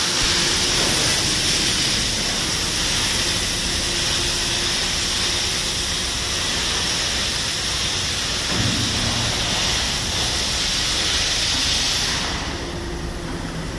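Steady hiss from tank-fabrication machinery, with a faint low hum under it; the hiss drops away sharply about twelve seconds in.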